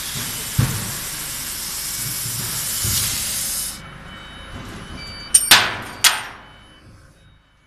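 Laser cutting machine cutting stainless steel sheet: a steady loud hiss of the cutting head's assist gas, which cuts off suddenly a little under four seconds in. After it, faint steady machine tones and two short loud bursts about half a second apart.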